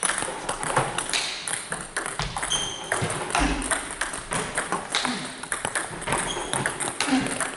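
Table tennis multiball drill: a quick run of sharp ball clicks as the coach feeds balls off his bat, they bounce on the table and the player returns them with backhand chop, several strikes a second.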